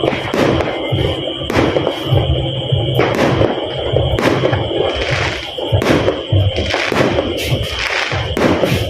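New Year fireworks and firecrackers going off: a string of sharp bangs at irregular intervals, about one or two a second, over continuous crackling.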